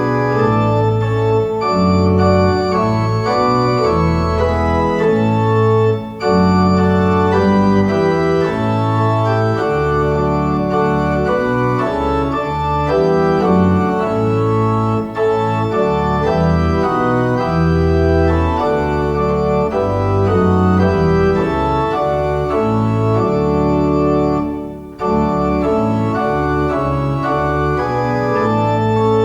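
Organ playing a hymn tune in full held chords over a moving bass line, with brief breaks between phrases, about six seconds in, about fifteen seconds in and a longer one near the end.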